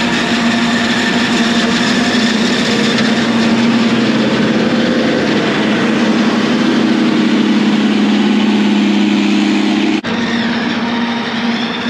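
Self-propelled forage harvester chopping standing corn, with a truck's engine running alongside: a loud, steady drone with a strong hum. About ten seconds in the sound changes abruptly to a more distant version of the same machinery.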